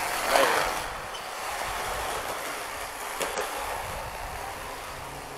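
Skateboard wheels rolling over concrete: a steady rolling noise, with a couple of short clacks, about half a second in and about three seconds in.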